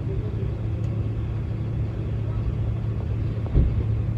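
Steady low mechanical hum, heard from inside a motorhome cab while diesel is being pumped at the fuel pump, with a short knock about three and a half seconds in.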